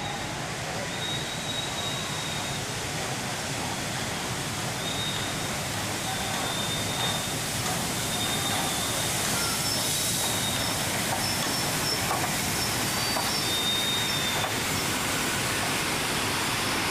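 Class 52 steam locomotive 52 8139 rolling slowly in with its train, a steady rumble that grows slightly louder as it comes close, with thin high-pitched squeals that come and go.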